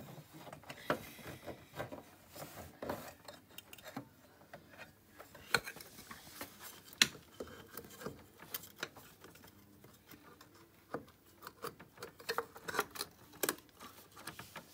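Aluminium magneto side cover of a moped engine being worked onto the crankcase by hand: scattered light clicks, taps and scrapes of metal on metal, the sharpest about five and a half and seven seconds in.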